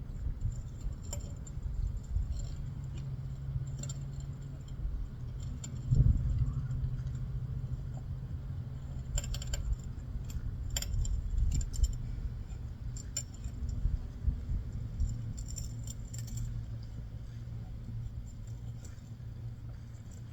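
Metal tools and parts clinking and jangling in short scattered bursts during mini bike reassembly, with a single thump about six seconds in, over a low steady hum.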